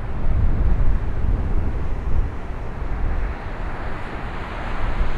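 Gale-force wind buffeting an outdoor microphone, a deep, gusting rumble over the rushing of a rough sea. It eases briefly about three seconds in.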